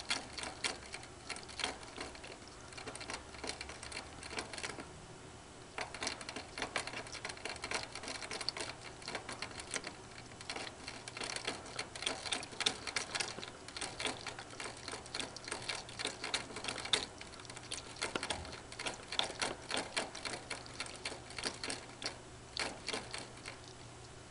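Ferret licking the metal sipper tube of a hanging water bottle while it drinks: fast, irregular clicking from the spout, with a pause of about a second about five seconds in.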